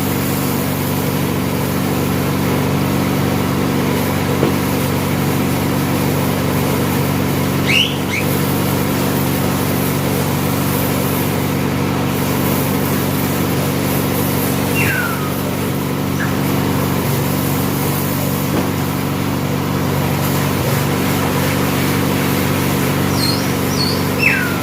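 A machine motor running steadily, a constant even hum. A few short, high, falling chirps sound over it, about a third of the way in, midway and near the end.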